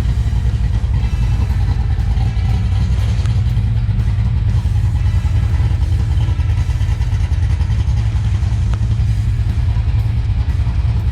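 Holden VC Commodore engine running steadily with a loud, aggressive exhaust; the engine carries a different cam and a bigger throttle body and has not yet been tuned.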